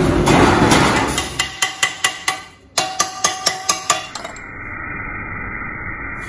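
A run of about a dozen sharp metal strikes, about three a second, each ringing at the same pitch: steel being hammered on a rusty exhaust pipe. Before them comes the rumble of a heavy truck passing, and after them a steady hum.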